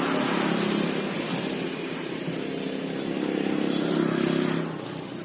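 Car engine idling steadily, a low hum under a high hiss.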